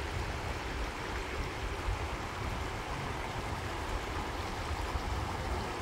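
Shallow river water rushing steadily over rocks in riffles, with a low rumble underneath.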